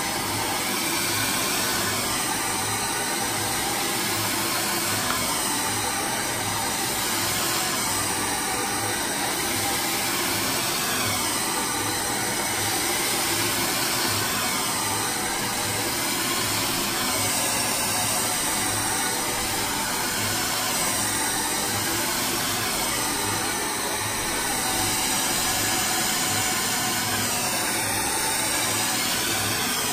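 DryBar Buttercup hair dryer running steadily, blowing hair straight over a round brush, the rush of air shifting slightly as the dryer is moved through the hair.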